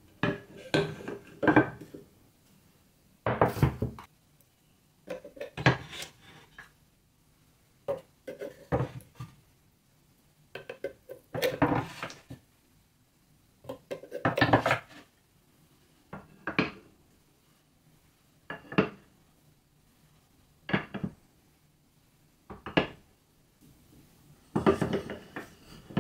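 Wooden marble-run track boards and blocks being set down and shifted by hand: about a dozen short bouts of wood-on-wood knocking and clatter, separated by pauses.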